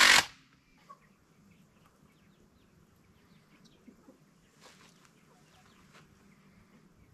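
A cordless drill driving a screw into the wooden frame stops just after the start. Then faint chickens clucking, with a few small clicks.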